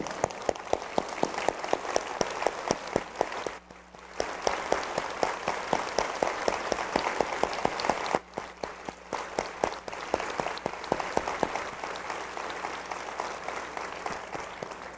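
Large audience applauding steadily, dropping away briefly twice, then fading out near the end.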